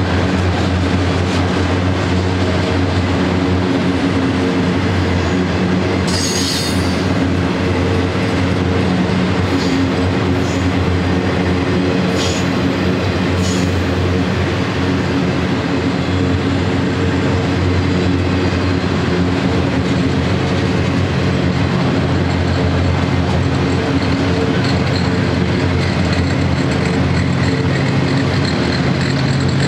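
Freight train of autorack cars rolling past, a steady rumble of wheels on rail under a low diesel locomotive hum. Brief high wheel squeals come about six seconds in and again around twelve and thirteen seconds. The low hum grows near the end as locomotives in the train draw closer.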